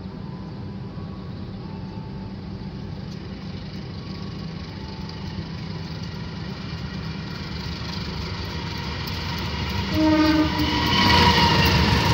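Argo Parahyangan express trains: a steady low rumble of the train running, growing louder as an oncoming Argo Parahyangan approaches on the next track. About ten seconds in, a locomotive horn sounds twice, a short blast and then a longer one, and the passing train's rush is loudest at the end.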